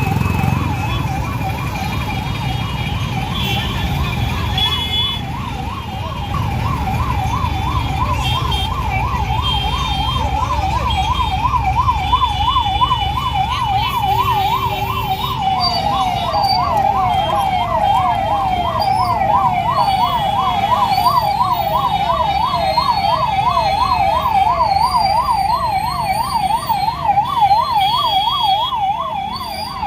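Two ambulance sirens sounding in a fast rising-and-falling yelp of about four cycles a second, the second, slightly lower one joining about halfway, from ambulances stuck in a traffic jam. Under them run the steady rumble of road traffic and short horn beeps.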